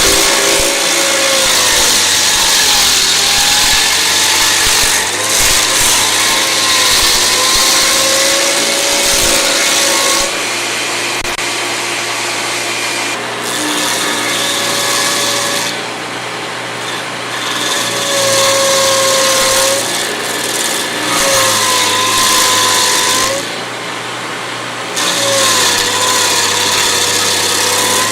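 A heavy wood-grinding machine chewing through wood: a hiss of shredding wood over an engine whose pitch sags and recovers under load. The grinding eases off for a second or two three times.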